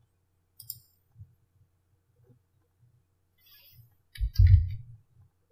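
A few faint scattered clicks, then a louder low bump with a crackly rattle about four seconds in, over a faint steady electrical hum.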